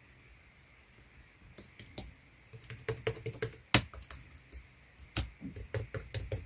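Slime being squeezed and pressed by hand, giving off irregular sharp clicks and pops, starting about a second and a half in.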